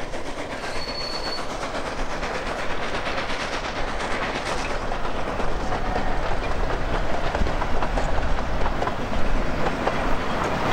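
Narrow-gauge (70 cm) steam train running on the forest line: a steady rumble with the clatter of wheels on the rails, slowly growing louder.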